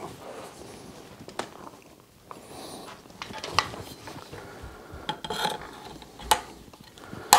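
A scoped rifle being handled and set onto a tripod mount: a scatter of sharp clicks and knocks, about five, with rubbing and rustling between them.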